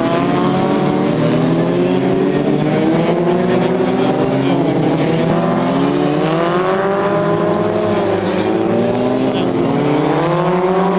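Engines of several single-seater racing cars running hard as the cars pass. Overlapping engine notes climb in pitch and drop back, rising strongly about six seconds in and again near the end.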